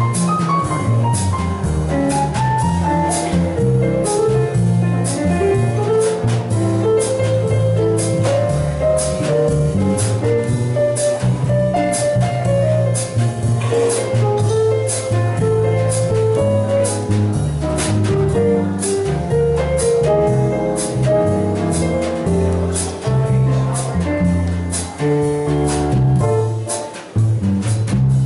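Jazz piano trio playing: acoustic piano carrying the melody and chords over a plucked upright double bass, with a drum kit keeping time on the cymbals.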